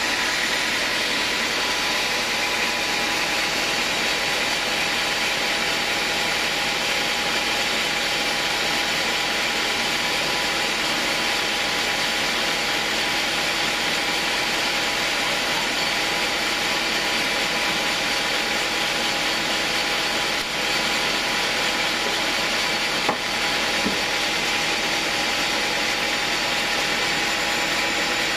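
Homemade band sawmill running steadily, a constant mechanical noise with a high whine held throughout. One sharp click near the end.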